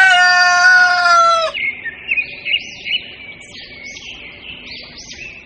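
A rooster crowing, its call ending about a second and a half in, followed by small birds chirping.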